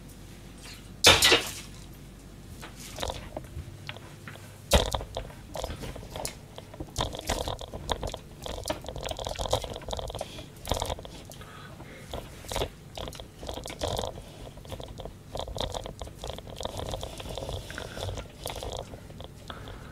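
Irregular kitchen handling noises: a sharp clack about a second in and another near five seconds, then a run of small knocks, clicks and crinkly rustles.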